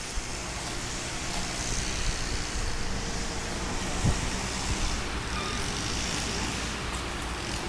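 Steady outdoor background noise: a continuous hiss over a low rumble, with one short thump about four seconds in.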